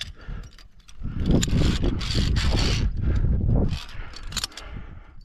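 Metal clicks of via ferrata carabiners on the steel safety cable, with a loud rushing noise and deep rumble for a few seconds in the middle.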